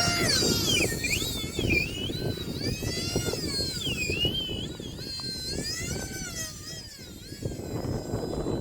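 Twin electric ducted fans of an E-flite UMX A-10 model jet whining in flight, the pitch rising and falling repeatedly with throttle and passes, over heavy wind buffeting on the microphone.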